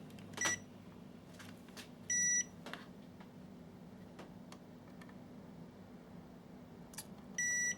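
Multimeter continuity beeper sounding as the probes touch connected points on a circuit board: a short chirp about half a second in, a beep of about a third of a second around two seconds in, and another near the end. Light clicks of the probes on the board come between the beeps.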